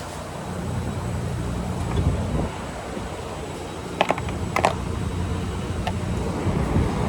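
A few sharp clicks and knocks, about four, five and six seconds in, over a steady low hum.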